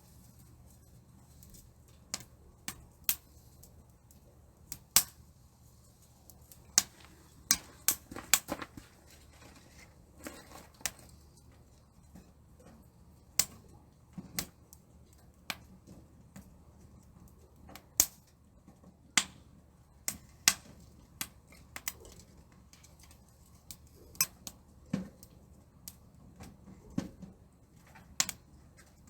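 Fire crackling inside a titanium camp stove, with irregular sharp pops every second or two over a faint steady background.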